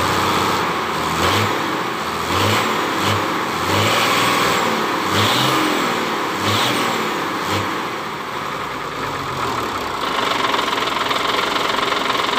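Hino FM260TI truck's diesel engine running unevenly after an injection pump swap, surging up and down about seven times before running steadier near the end. The mechanic judges from this sound that it is still not right, with a little smoke: the injection pump timing needs resetting.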